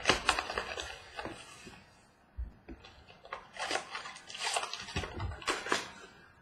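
Handling and opening a small cardboard box of trading cards and sliding out a foil-wrapped pack: irregular rustling, crinkling and small clicks of card stock and foil, with a brief pause about two seconds in.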